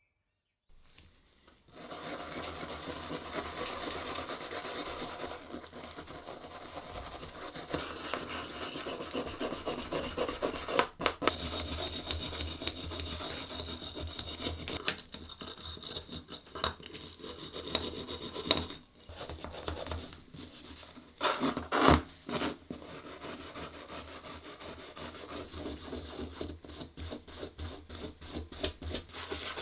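Rust being scraped off an old Stanley 75 bullnose plane by hand: steady scratchy rubbing of an abrasive stick on the cast-iron body, then a small wire brush scrubbing the steel cutter. There is a brief louder scrape about two-thirds of the way through.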